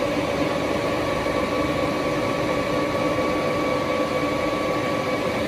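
A large engine lathe running without cutting: a steady mechanical hum with a steady whine from its drive.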